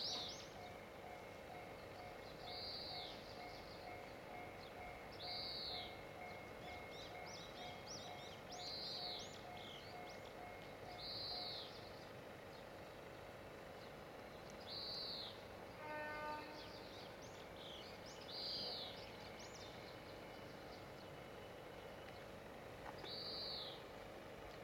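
A songbird repeating a short arched call every two to three seconds, with other thin, quick chirps around it. Under it a faint, evenly pulsing tone, about two pulses a second, stops about halfway through, and a brief buzzy tone sounds about two-thirds of the way in.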